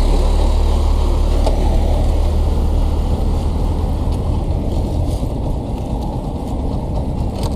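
Yamaha FZS V3 motorcycle running with wind rushing over the camera microphone. The low rumble eases off after about four seconds as the bike slows to pull over.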